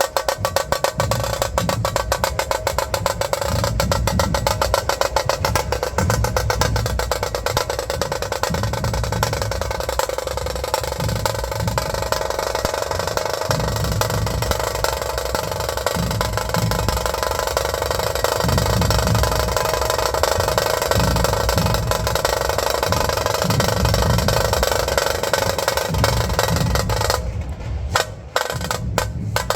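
Dhol drums played in a fast, dense rhythm: rapid sharp strikes over a deep, pulsing low beat. The playing thins out for a moment near the end, then picks up again.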